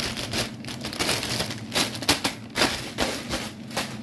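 Plastic steam bags of frozen vegetables crinkling and rustling as they are handled, with irregular sharp crackles.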